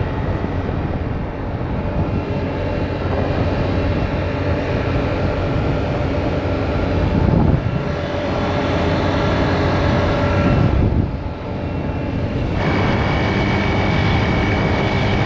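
Motor scooter being ridden along the road: its engine runs under a loud, steady rush of air and road noise. The engine has just been topped up with oil after running dry. A steady high tone comes in near the end.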